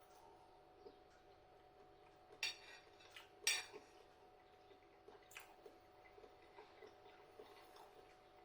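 A few short, light clinks of tableware over near silence, two of them stronger about two and a half and three and a half seconds in.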